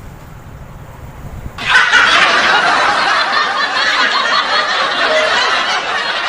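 A crowd of voices laughing loudly, starting suddenly about a second and a half in, over a low rumble before it.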